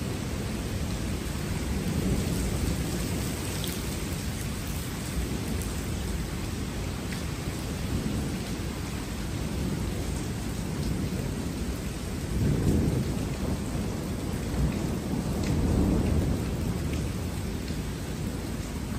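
Thunder rumbling over steady rain. The rumble swells louder twice in the second half.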